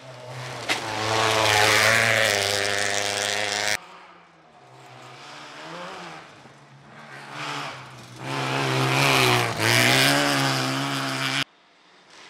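Rally car engines revving hard at high rpm, with pitch rising and dropping through gear changes. There are two loud runs of a few seconds each, both cutting off suddenly, and a fainter engine between them.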